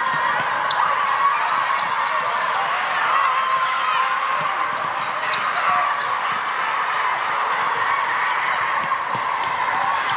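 A crowd of young boys shouting and cheering all at once, a steady dense din of excited voices with no single speaker standing out.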